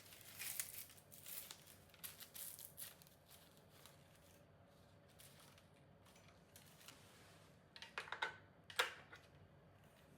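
Rustling, crinkling handling noise in two bouts of short bursts, the first over the opening three seconds and the second around eight to nine seconds in.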